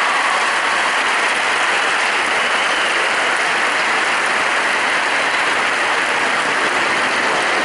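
Large audience applauding, a dense, steady clatter of many hands.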